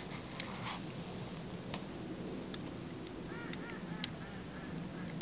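Geese honking: a quick run of repeated calls starting about three seconds in. A few sharp clicks stand out over it, the loudest near the start.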